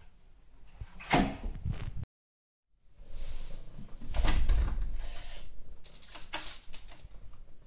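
A door being worked by a cat: the lever handle and latch rattle and the door knocks and bumps as the cat hangs from the handle and scrabbles at it, with sharp clicks later on. The sound cuts out completely for under a second about two seconds in.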